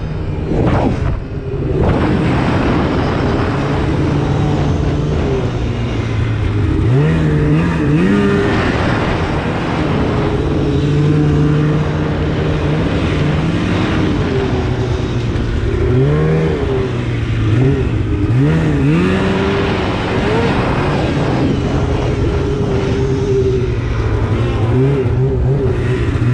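2016 Polaris RMK 800 snowmobile with a Bikeman aftermarket exhaust can. Its two-stroke twin engine dips briefly about a second in, then revs up and eases back again and again as the throttle is worked while riding.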